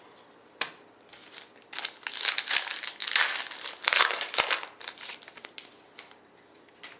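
Foil trading-card pack wrapper being handled and crinkled, in a dense crackling burst of about three seconds in the middle, with a few sharp clicks before and after.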